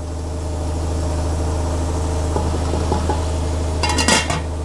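A steady low mechanical hum, with a brief metallic clatter about four seconds in as the aluminium lid of the cooking pot is taken hold of and lifted.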